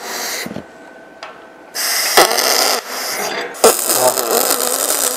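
Pulse MIG welding arc on 6 mm aluminium with 1.2 mm wire: a loud crackling hiss that starts about two seconds in, breaks off briefly twice and picks up again, with sharp pops as it restarts. A wavering buzz comes through under it near the end.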